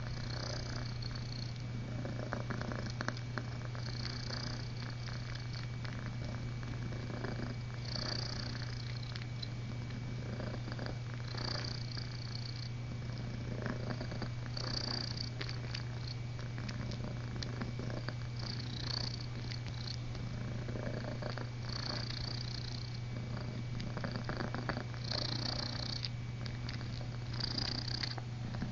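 Kitten purring steadily at close range while it kneads, with soft rustling and scratching from its paws working the cloth.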